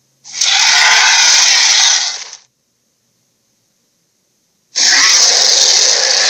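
Dragon roar sound effect: a raspy, hissing roar lasting about two seconds, then silence, then a second roar about four and a half seconds in.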